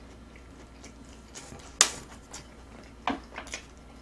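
Close-miked eating: quiet chewing with one sharp click about two seconds in and a quick run of three smaller clicks near the end.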